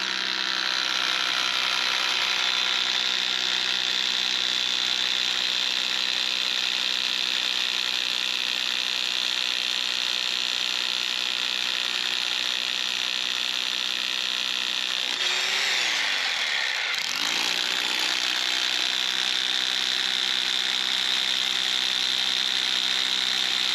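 Power drill boring holes into a large rock, running steadily. About fifteen seconds in it winds down briefly, then comes back up to speed.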